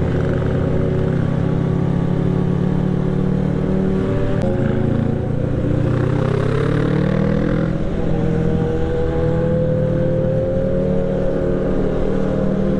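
Kawasaki Z650's parallel-twin engine running steadily under way, heard from the rider's seat. From about halfway through, its pitch climbs gradually as the bike accelerates.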